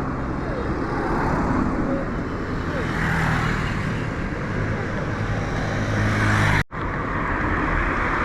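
Road traffic noise: vehicle engines running and passing, with a steady low engine hum under the rush of traffic. The sound drops out for an instant about two-thirds of the way through.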